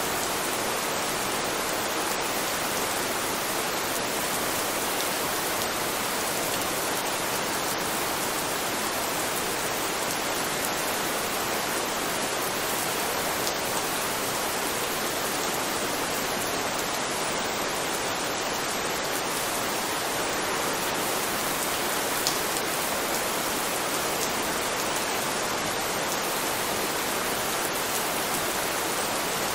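Steady rain falling, an even hiss of many drops, with the odd louder drop standing out now and then.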